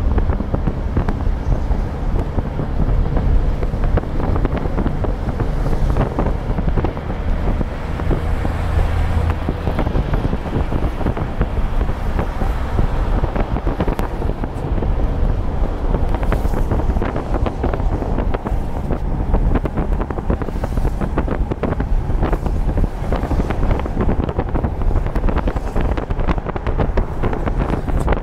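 Steady wind and road noise inside a moving vehicle, with a low engine rumble and frequent small rattles.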